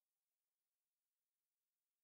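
Near silence: the soundtrack is empty after the closing music fades out.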